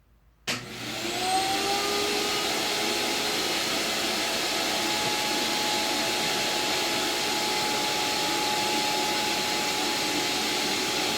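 Shop vac used as a blower, switched on about half a second in: its motor whine rises as it spins up, then it runs steadily and loud, blowing air into a car's tailpipe to pressurize the exhaust.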